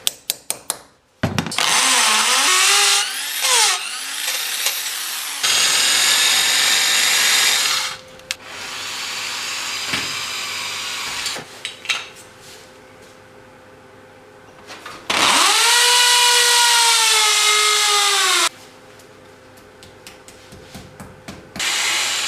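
A few sharp taps, then a power drill running in several long bursts, its pitch rising and falling as it speeds up and slows, with clicks and knocks between the runs.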